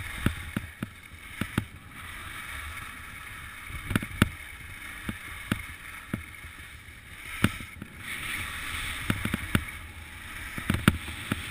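Skis sliding over snow in a steady hiss, with scattered sharp clicks and knocks.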